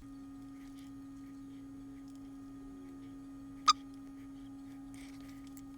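A steady low hum on one pitch, with a single short click about three and a half seconds in.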